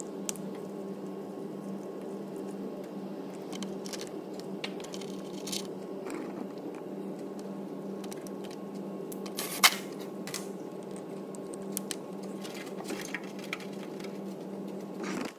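Small plastic clicks and rustles as an exhaust NOx sensor's wiring loom is clipped into its underbody holders and connector, the sharpest click about ten seconds in, over a steady hum.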